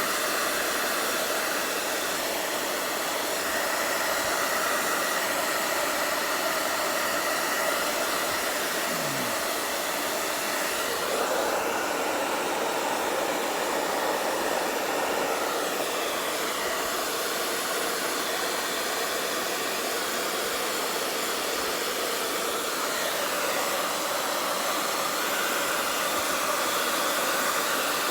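Hair dryer blowing steadily, a continuous airy hiss; its sound shifts about eleven seconds in.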